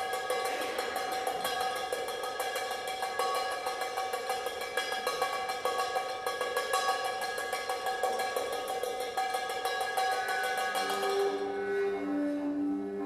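Drum kit played with extended technique: a rapid, even rattle of clicks over several sustained ringing tones. About eleven seconds in the rattle stops and lower droning tones take over.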